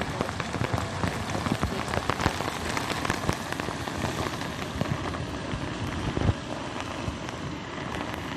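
Heavy rain pouring down, with a dense patter of close drops over muddy floodwater rushing past. There is a louder thump about six seconds in.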